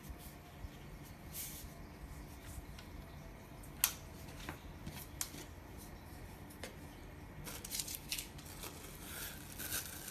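Light handling noises: scattered soft clicks and rustles over a faint low background hum, with one sharper click about four seconds in and a busier cluster of clicks near the end.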